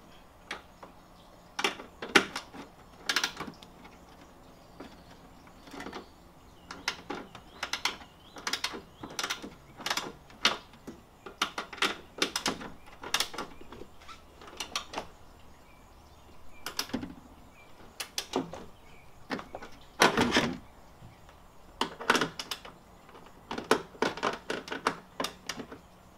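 Irregular clicks, taps and knocks of a hand tool working on the mounting nuts of a BMW E46 M3 taillight from inside the trunk, as the new light is tightened into place. The clicks come in short, scattered clusters.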